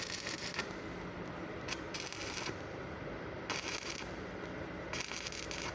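Stick-welding arc crackling steadily while running a vertical weld, with the sizzle getting brighter and duller every second or so.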